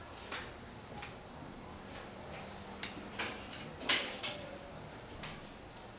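Classroom room noise with a few short knocks and rustles from desks and paper, the loudest about four seconds in.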